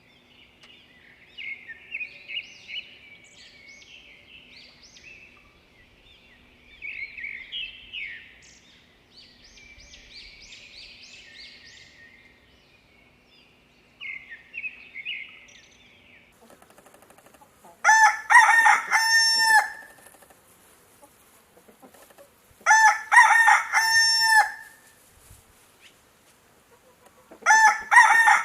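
A small songbird sings in short, quick chirping phrases. After a cut about halfway through, a rooster crows loudly three times, about five seconds apart.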